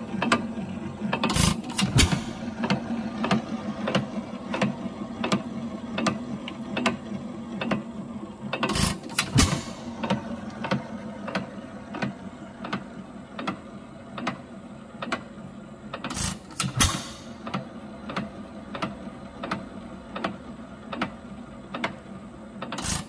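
Century-old hit-and-miss engine idling on its governor. It coasts with a steady clicking about twice a second, and about every seven seconds it fires a quick group of two or three bangs before coasting again, the normal hit-and-miss cycle.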